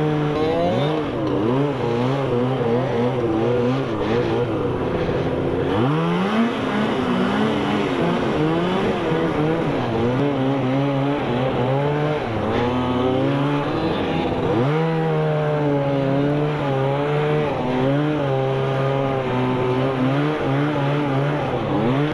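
Fan-cooled two-stroke snowmobile engine running under way, its pitch repeatedly rising and falling as the throttle is worked.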